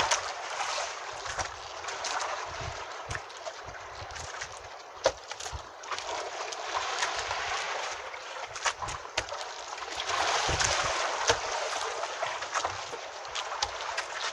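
Water and wind noise washing around a small outrigger fishing boat, swelling and easing, with scattered light clicks and knocks; the sharpest knock comes about five seconds in.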